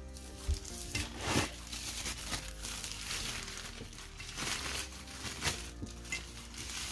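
Packaging crinkling and rustling as it is handled during unpacking, with a few sharper crackles.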